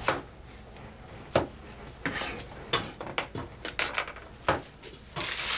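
Clinks and knocks of a stainless steel bowl and utensils being handled on a kitchen counter, with a brief metallic ring about two seconds in. A short scraping rustle near the end as dry onion skins are swept off the cutting board.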